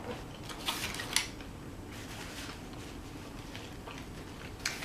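Eating and handling sounds: a few short clicks and scrapes of a utensil and a takeout food container, a cluster about a second in and one more near the end, over a low steady hum.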